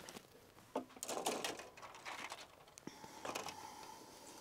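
Plastic model kit sprues being handled on a tabletop: light rustling with scattered clicks and taps of plastic as one parts frame is lifted away and the next is set down.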